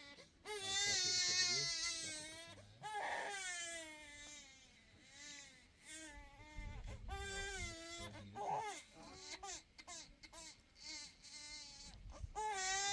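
Infant crying: a string of high, wavering cries with short breaks for breath, loudest about half a second to two seconds in.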